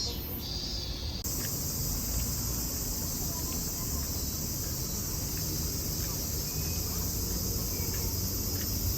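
Insects calling shrilly: a few pulsed calls, then from about a second in a dense, steady chorus, over a low background rumble.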